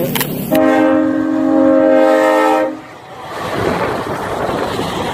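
Semi truck's air horn sounding one steady chord for about two seconds, followed by a steady rushing noise as the truck rolls past.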